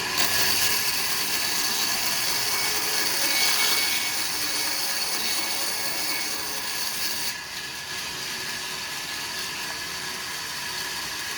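Sawmill saw cutting through timber: a steady, high-pitched machine whine with a loud cutting hiss. The cut ends about seven seconds in, and the saw runs on more quietly.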